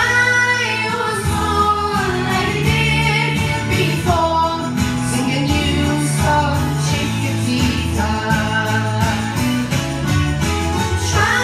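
A woman singing into a microphone, amplified, over a recorded backing track with held bass notes.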